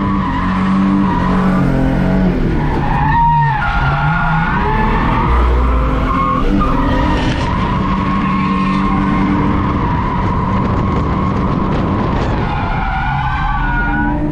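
Holden VS Commodore's standard V6 running at high revs through a drift run, heard from inside the cabin, with tyres squealing. The revs drop and climb back twice, about three seconds in and near the end, as gears are changed.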